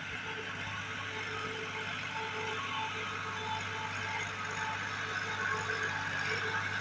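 New Holland tractor's diesel engine running steadily under load while it drives a rotavator through a flooded field, puddling the mud. The sound grows a little louder near the end as the tractor comes closer.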